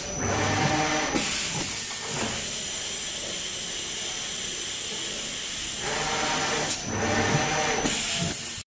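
Automatic suction-fed paper feeder running, with a steady hiss of air from its suction and blowing system as sheets are lifted and fed. The sound cuts off abruptly near the end.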